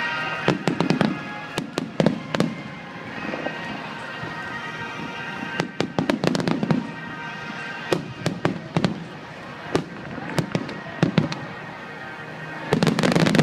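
Fireworks display: aerial shells bursting with sharp bangs and crackles in irregular clusters, with a dense volley near the end.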